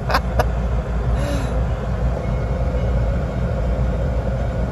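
Steady low rumble of a car's engine idling, heard from inside the stopped car's cabin, with a few light clicks right at the start.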